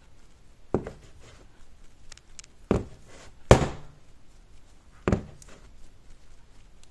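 A clear plastic jar knocking down on a marble countertop as a gloved hand moves and turns it. There are four knocks spread over several seconds, the third the loudest with a short ring, and light handling clicks and rustles between them.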